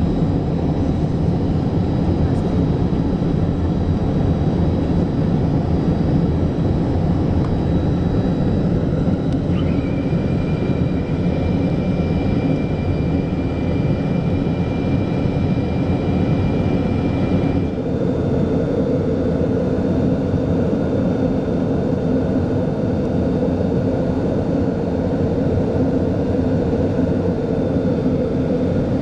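Cabin noise of a Yak-40 in its climb after takeoff: its three rear-mounted Ivchenko AI-25 turbofans run steadily. A thin high whine comes in about ten seconds in and stops some eight seconds later, when the engine sound shifts to a lower-pitched note.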